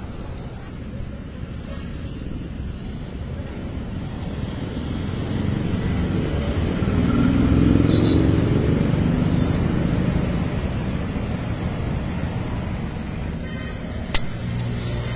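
Street traffic rumble that swells as a vehicle passes close about halfway through, then eases off, with a single sharp click near the end.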